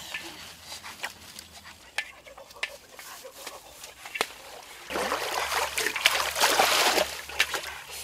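Water splashing and sloshing as a basin is dipped into a pond and the water thrown out, starting suddenly about five seconds in. Before that, only a few faint clicks and rustles.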